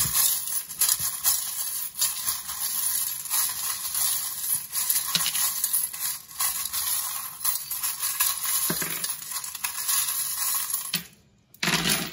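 Small metal charms and letter tiles jangling and clinking as they are stirred and shaken in a brass bowl. It stops about eleven seconds in, followed by a short clatter near the end.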